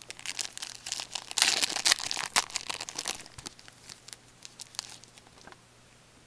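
A hockey card pack's wrapper being torn open and crinkled by hand. The crackling is loudest in the first half and dies away after about five seconds.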